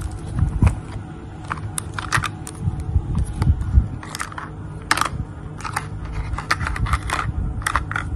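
Plastic toy train pieces clicking and knocking together as a child handles them, in irregular light clicks, over a low rumble of handling noise.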